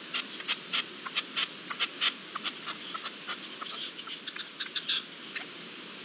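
Small birds chirping: a rapid, irregular run of short high chirps, several a second, over a steady hiss. The chirps stop about five and a half seconds in, leaving only the hiss.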